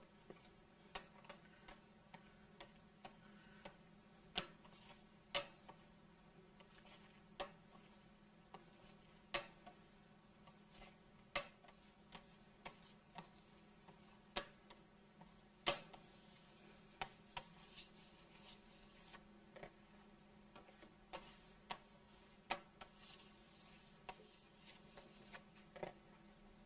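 Metal scraper and palette knife clicking and scraping against a granite slab as melted dark chocolate is tabled, worked on the cold stone to temper it. Irregular sharp clicks, roughly one to two a second, over a faint steady hum.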